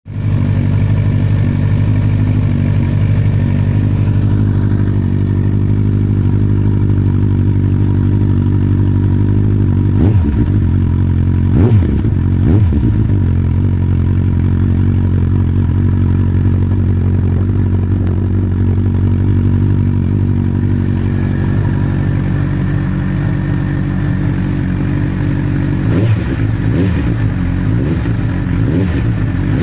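Honda CBF1000's inline-four engine idling steadily through a Delkevic 350mm oval slip-on silencer with its baffle fitted, with a few short throttle blips about ten to thirteen seconds in and again near the end.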